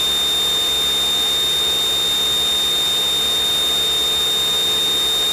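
Steady high-pitched electronic whine over even hiss, unchanging throughout, heard in the cockpit audio feed between radio calls.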